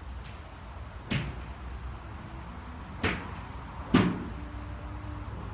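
Three sharp cracks of golf balls being struck by clubs, the last the loudest, over a steady low rumble.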